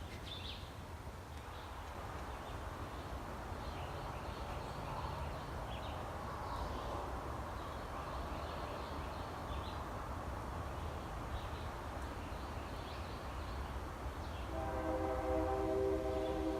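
A train running with a steady low rumble, a real train and not a tornado. Near the end its horn begins to sound, a steady multi-note chord.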